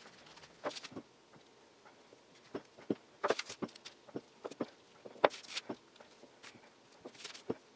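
Wooden rolling pin rolling out a sheet of puff pastry on parchment paper: scattered soft knocks and papery crinkles, with short rustles about three seconds in and again just after five seconds.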